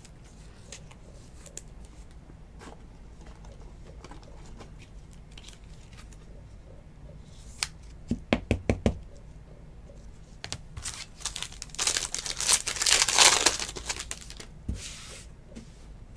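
Hands handling trading cards. A quick run of light taps comes about eight seconds in, then a card pack's wrapper crinkles and tears, loudest near the end.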